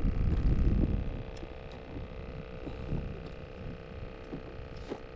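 Low, irregular rumble of wind on the microphone, loudest in the first second, over a faint steady hum, with a couple of light clicks near the end.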